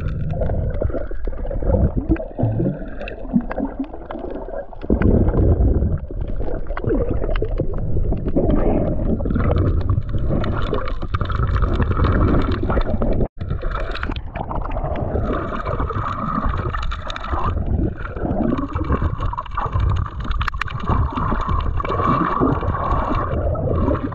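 Muffled underwater rumble and gurgling of water moving around a GoPro camera, recorded below the surface. The sound cuts out for an instant about halfway through.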